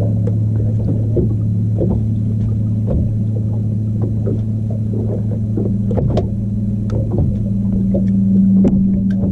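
A boat motor hums steadily in two low tones, with irregular short knocks and slaps of water against the hull.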